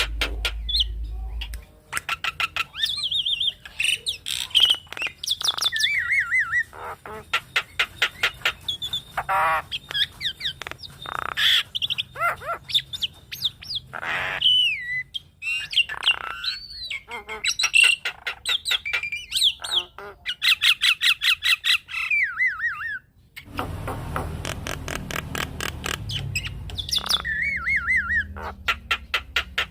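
Javan myna (jalak kebo) calling: a dense run of harsh squawks, fast rattling clicks and whistled gliding notes. After a brief pause a little before the end, the calls go on over a steady low hum.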